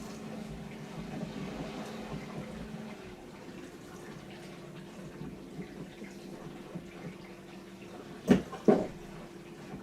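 Bosch Serie 4 compact dishwasher running a wash cycle: its pump hums steadily under the sound of water spraying and sloshing inside the tub. About three seconds in, the hum changes pitch. Two sharp knocks come close together near the end.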